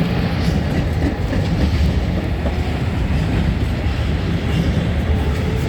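Freight train hauled by an HŽ series 1141 electric locomotive, with Eas open wagons, passing close by: a loud, steady rumble of steel wheels on the rails.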